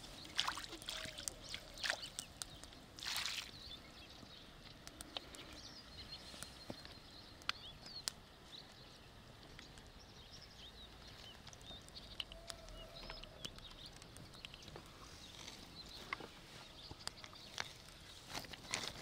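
Water splashing and sloshing as hands are rinsed in a pan of water, with a louder splash about three seconds in. After that come scattered light clinks and knocks of clay crockery and a knife on a wooden board over quiet outdoor background.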